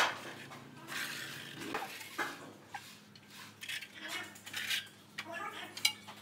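Steel tiling trowel scraping and spreading cement mortar on a floor, with light metal clinks. There is a sharp clack right at the start and another shortly before the end.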